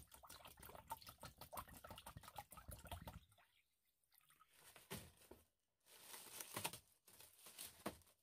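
A stream of water pours and splashes into a plastic tub over submerged brass lamp parts. In the second half, thin plastic crinkles and rustles as a bag is stretched over the tub.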